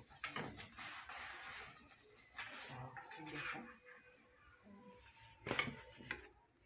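Cooking utensils scraping and clinking against a pan as a chapati cooks, with a sharp clatter about five and a half seconds in.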